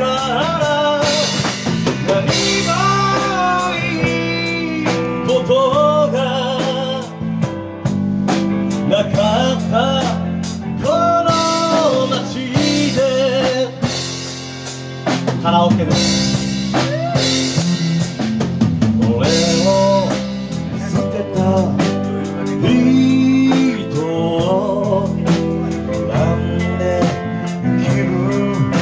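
Live band playing a song: drum kit, electric guitar and keyboards, with a wavering lead melody over them.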